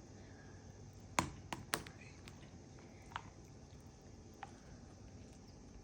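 Goo being squished and worked, giving a few faint sticky clicks and pops, three in quick succession about a second in and a couple of softer ones later.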